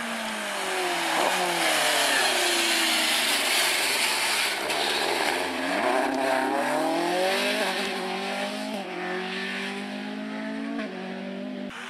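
Rally car engines at full throttle on a stage, revving hard and dropping back at each gear change, the pitch falling and then climbing through the gears.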